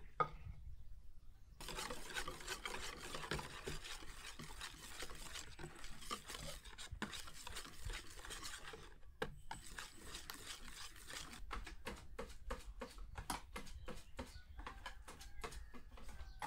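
Cupcake batter being stirred by hand in a bowl, the utensil scraping and rubbing against the bowl as red food colouring is mixed in. It starts about a second and a half in, breaks off briefly near the middle, then goes on in quicker, even strokes, about four a second, near the end.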